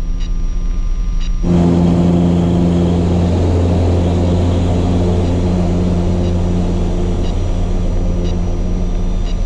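Piper Cherokee's four-cylinder piston engine at full takeoff power, heard from inside the cockpit as a steady drone. About a second and a half in, a rush of airflow noise joins and the sound gets a little louder.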